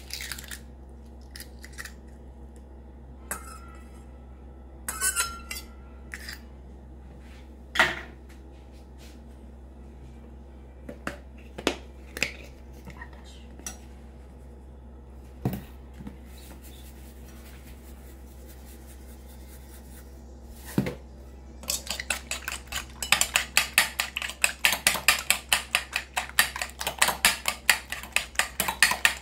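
Eggs being cracked with a metal spoon over a ceramic bowl: scattered light taps and clicks. About three quarters of the way in, a fork starts beating the eggs, clicking rapidly and evenly against the bowl, several strokes a second.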